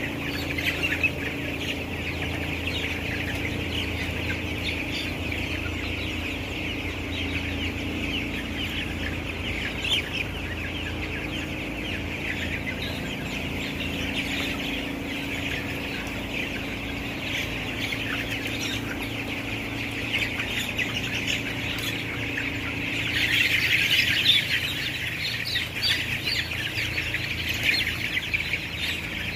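A large flock of 16-day-old broiler chickens peeping and chirping all at once, a dense continuous chatter of thousands of birds that swells louder a little past twenty seconds in. A steady low hum runs underneath.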